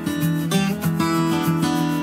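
Background music led by a strummed acoustic guitar, with chords changing every fraction of a second.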